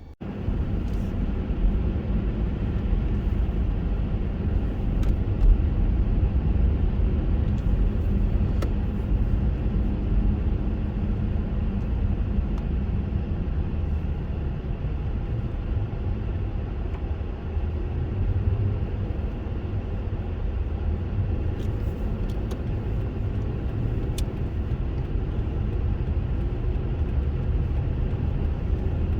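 Car driving: a steady low rumble of engine and road noise, with a few faint clicks.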